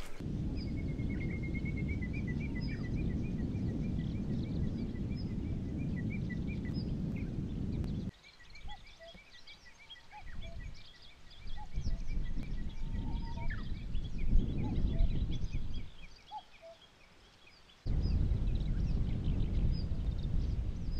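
Small birds singing, with many short repeated chirps and trills, over wind rumbling on the microphone; the wind noise drops away twice for a few seconds.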